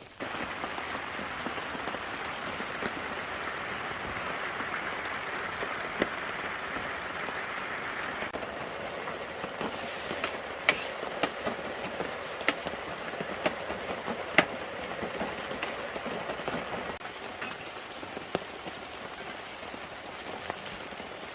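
Korean seafood pancake frying in oil in a pan: a steady sizzle, with sharp pops of spitting oil from about halfway through.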